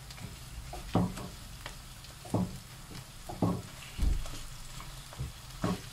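Ground beef and diced onions sizzling in a frying pan, stirred with a wooden spatula that knocks against the pan several times.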